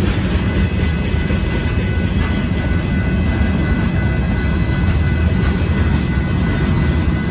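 Union Pacific freight train of hopper cars rolling past: a steady rumble of wheels on the rails, with a thin, steady high whine above it.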